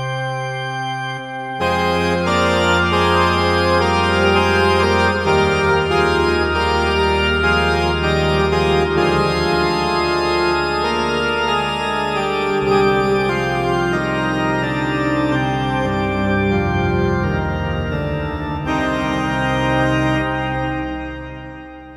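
Korg Z1 multi-oscillator synthesizer playing an organ patch: slow, held minor chords over a deep bass note that changes every few seconds, fading out over the last couple of seconds.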